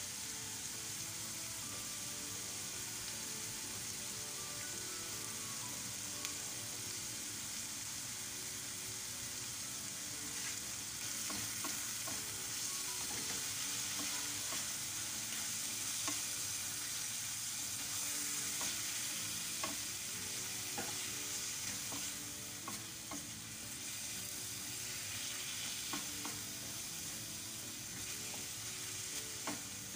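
Chicken pieces and onion sizzling in oil in a nonstick frying pan, a steady hiss, with a wooden spoon stirring and clicking against the pan from about ten seconds in.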